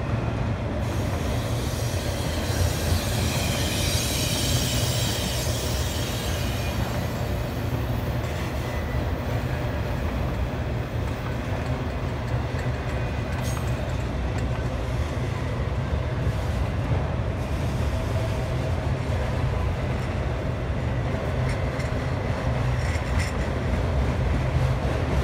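Autorack freight cars rolling slowly past: a steady low rumble of steel wheels on the rails, with a high metallic wheel squeal from about two to seven seconds in.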